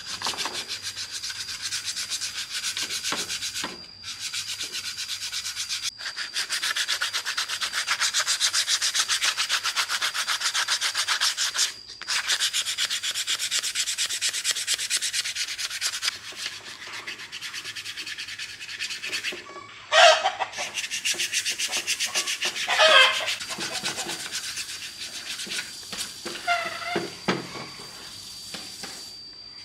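Rapid back-and-forth hand sanding or scrubbing strokes on a part being restored, in several runs broken by short pauses. Later a cat meows a few times, loudest about twenty and twenty-three seconds in.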